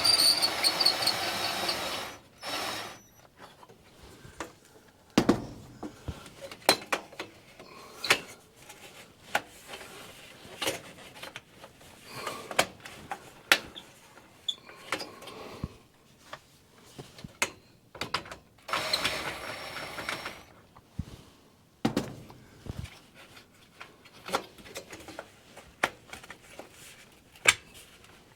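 Metallic clicks, clinks and knocks from a stovepipe clamp being worked loose and the sheet-metal pipe being handled, with two louder, noisier stretches of a second or two, one at the start and one about two-thirds of the way through.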